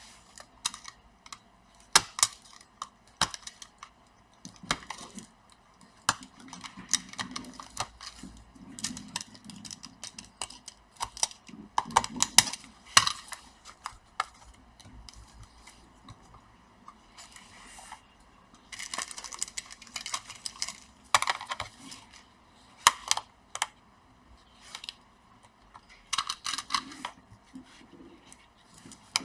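Blade cutting the melted plastic rivets that hold a bonded laptop keyboard to its top case, with irregular sharp clicks and short scrapes of plastic.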